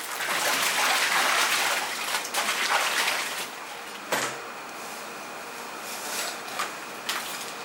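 Crushed ice shifting and rattling in a styrofoam fish box for about the first three seconds. Then quieter knife work on a fish at a wooden board, with a sharp knock about four seconds in and a few faint scrapes.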